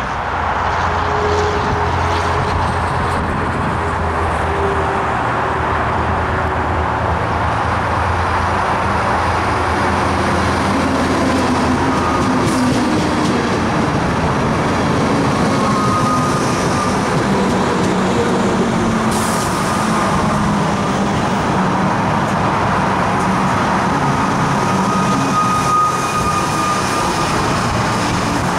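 Comeng electric suburban train running past close by and slowing into the station: a steady rumble of wheels on the rails with a traction-motor whine that falls in pitch as it slows.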